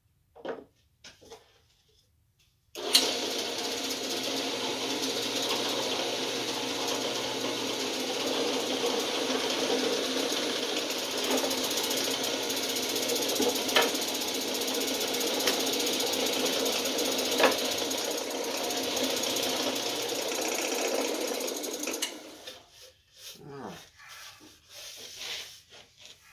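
Bench drill press switched on with a sudden start, its motor running steadily with a few clicks for about twenty seconds, then switched off and winding down. A few small handling knocks follow.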